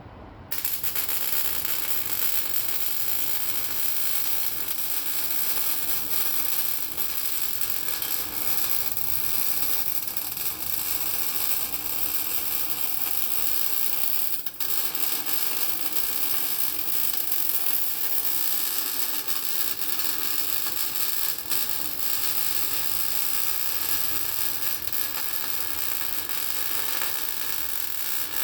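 Welding arc crackling steadily as a weld bead is run on a steel cross member. It starts abruptly just after the opening and pauses for a split second about halfway through.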